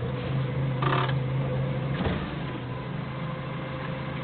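Forklift engine running at a steady idle with a low hum, with a brief hiss about a second in and a light click shortly after.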